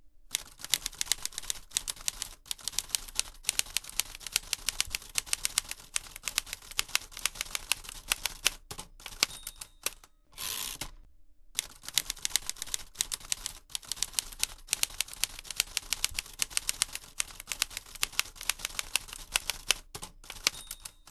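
Typewriter keys clacking in quick runs, several strikes a second, with short pauses between runs, sounding as text is typed out on screen. About ten seconds in, the clacking stops for a short swish before the typing starts again.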